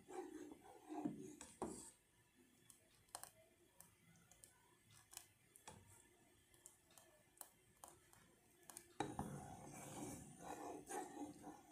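Metal spoon stirring a thick white sauce in a stainless steel saucepan: faint scrapes and light clicks of the spoon against the pan. About nine seconds in, a louder, steadier noise joins.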